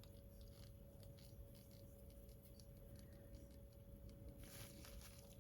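Near silence: faint room hum with a few light clicks and, about four and a half seconds in, a brief soft hiss.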